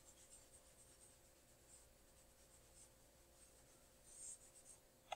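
Very faint rubbing of a soft wipe across a dry-erase whiteboard as marker writing is erased, in a few short strokes, the last about four seconds in being the loudest; a small click just before the end.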